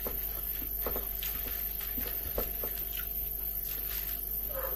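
Chopsticks tapping and scraping against a plastic takeaway tray as a sushi roll is broken up, a scattering of faint clicks, over the steady hum of a refrigerator that is running.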